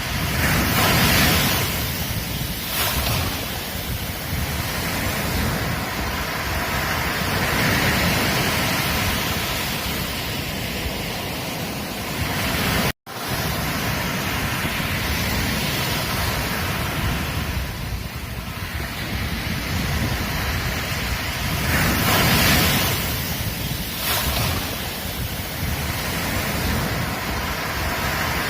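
Sea waves breaking on a beach: a continuous rush of surf that swells and eases every few seconds. The sound cuts out completely for a split second about halfway through.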